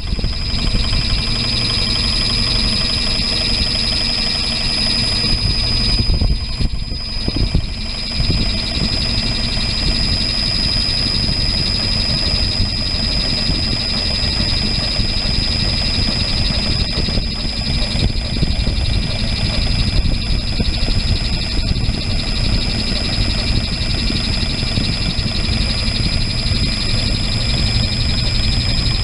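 Cylinder-head planing machine running steadily as it surfaces the head of a V6 boat engine, a constant high whine over a low machine hum.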